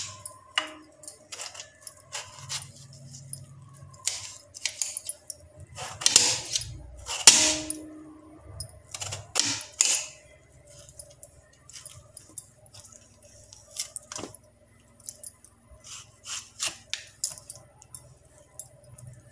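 Knife slicing a peeled Mangalore cucumber half into wedges on a steel plate: irregular clicks and scrapes as the blade goes through the flesh and strikes the plate, the loudest strokes about six to ten seconds in.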